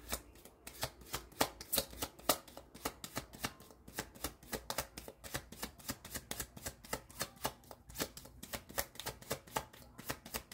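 Tarot deck being shuffled by hand: quick, even card clicks, about five a second.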